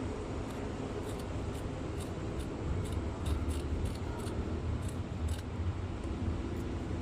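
Scissors snipping, about a dozen short sharp cuts in a row, over a steady low background hum.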